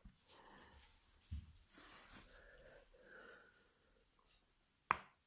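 Faint breathing with a soft exhale about two seconds in, then one sharp click near the end.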